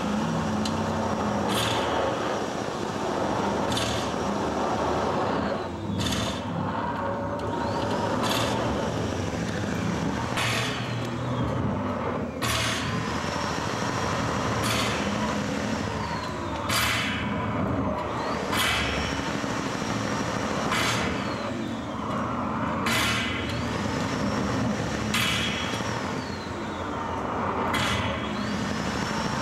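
Live noise-art performance sound: a dense, steady roar of noise with a sharp hissing burst repeating about every two seconds, and thin high whistles that glide up and down.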